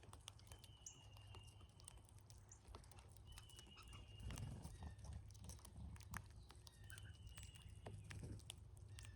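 Cowbirds at a backyard feeder, faint: many light clicks and taps of birds pecking and hopping on the feeder, with three thin, short whistles.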